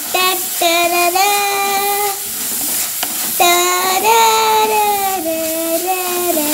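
A high voice singing a tune, a few short notes and then longer held ones, over shallots, garlic and green chillies sizzling in oil in a clay pot as a wooden spatula stirs them.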